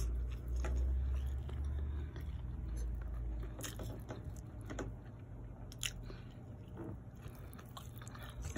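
A person chewing a mouthful of chicken and rice close to the microphone, with scattered small clicks and smacks. A low rumble sits under the first few seconds.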